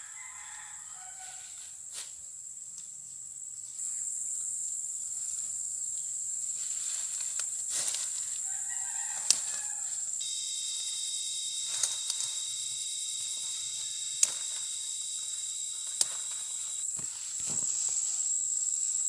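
Steady high-pitched drone of insects, with a second whining insect chorus joining about ten seconds in and stopping near the end. A few sharp clicks, likely fern stalks being snapped off as they are picked.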